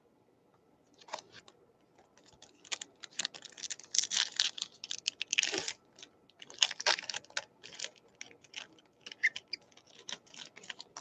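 Foil trading-card pack crinkling and crackling as it is torn open, with the cards inside being handled, in short irregular bursts.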